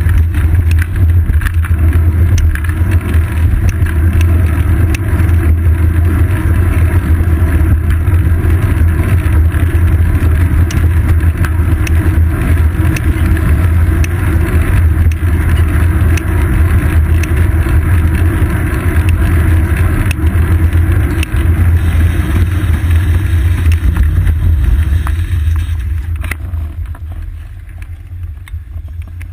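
Wind buffeting and road vibration on a seat-post-mounted GoPro Hero 2 on a moving bicycle: a loud, steady low rumble that grows quieter over the last few seconds.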